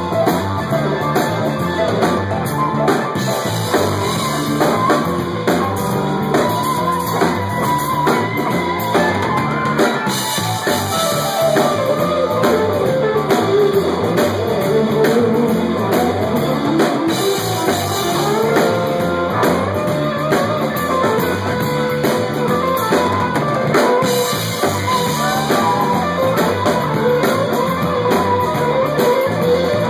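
Live rock band playing: electric guitars over a drum kit, loud and continuous.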